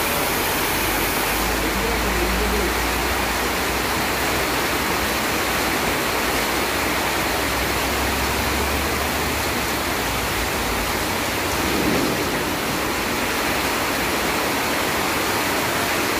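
Heavy monsoon rain falling, a steady even hiss, with a low rumble underneath for the first half.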